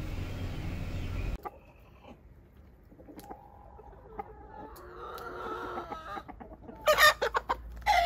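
Domestic chickens clucking softly, then a cluster of louder squawking calls near the end. A steady low hum runs underneath for the first second and a half and then cuts off.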